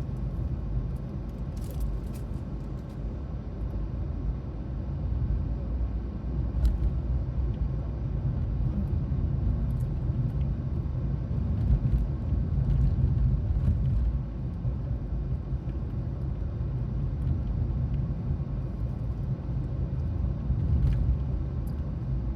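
Steady low rumble of a car, with a few faint ticks.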